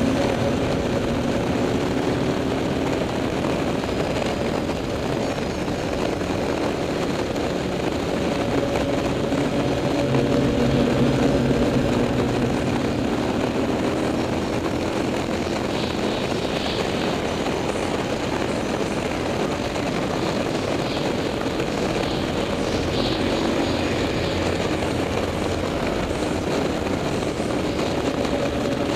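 KTM 990 SMT's LC8 V-twin running through a LeoVince aftermarket exhaust while being ridden, at fairly steady revs with its pitch drifting gently up and down. Wind rushes over the microphone throughout.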